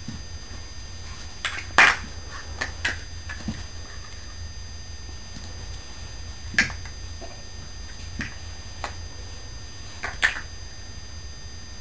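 Plastic Lego blocks clicking and knocking together as they are handled, in scattered single clicks with the loudest a little under two seconds in, over a low steady hum.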